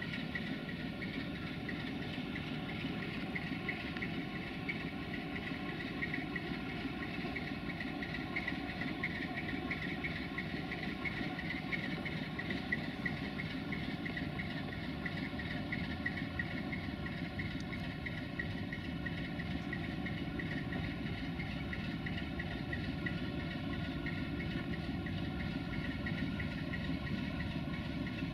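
Sulzer V12 diesel engine of a CFR 060-DA (LDE2100) diesel-electric locomotive running steadily at idle, an even throb with no change in speed.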